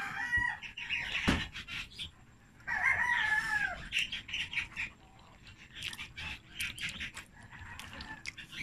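A rooster crowing, once at the start and again more clearly about three seconds in, with the long call falling in pitch at its end. Close by, noodles are slurped and chewed, with a run of small wet clicks in the second half.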